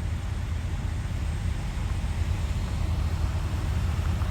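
Semi truck's diesel engine running, heard inside the cab as a steady low rumble.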